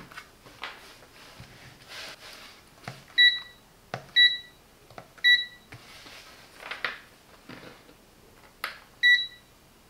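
Digital clamp meter giving four short electronic beeps as its function buttons are pressed, switching it to diode-test mode. Faint clicks and rustles of the test leads being handled fall between the beeps.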